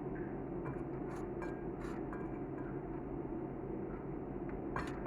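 Scattered light clinks of a utensil against a dish, a few early on and a small cluster near the end, over a steady low hum.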